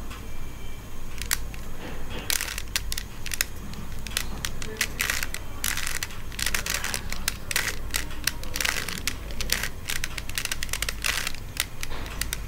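Plastic 3x3 Rubik's cube turned quickly by hand: a fast, irregular run of clicks and rattles as the layers snap round, over a steady low hum.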